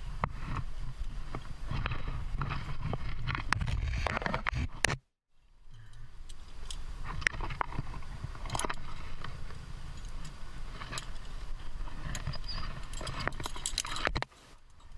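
Scattered clicks, clinks and scrapes of a trad climber moving on rock: rack gear clinking and hands and shoes scraping the stone, over a low rumble. The sound cuts out completely for a moment about five seconds in.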